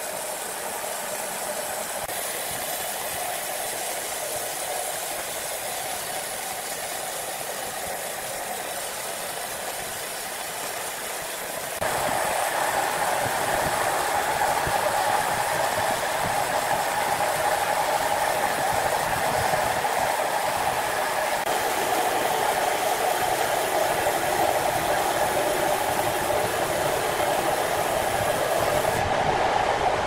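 Steady running noise of a horizontal band sawmill, with a sudden step up in loudness about twelve seconds in.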